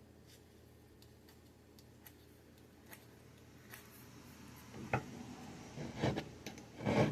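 Small metal file of a Gerber Dime multi-tool scraping across a rusty razor blade, trying to take off the rust. A few light clicks come first, then rasping strokes about one a second in the second half.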